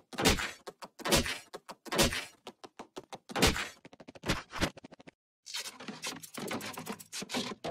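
Cartoon sound effects: a series of dull thunks and knocks, a louder thud about every second with small clicks between, then a quicker cluster of knocks near the end.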